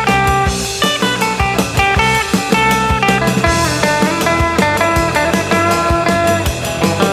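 Electric guitar, a Stratocaster copy on a clean surf-rock tone with twang, playing a melodic lead with held and bent notes over a backing track with bass and a steady drum beat.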